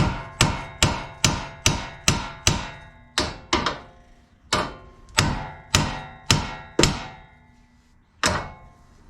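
Hammer blows on steel in the front suspension, about fifteen strikes at roughly two or three a second with two short pauses, each blow ringing metallically. The hammering is meant to knock a tapered joint stud loose, with its nut left threaded on so a missed blow does not damage the threads.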